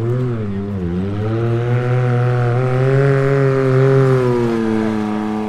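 A race UTV's engine running hard as it goes by, with a short dip in pitch about a second in, then holding steady before sliding down in pitch and fading near the end.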